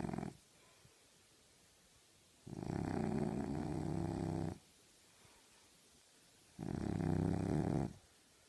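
French bulldog snoring in its sleep: one snore trails off right at the start, then two more rough, rattly snores about two seconds long come roughly four seconds apart, with quiet breathing gaps between.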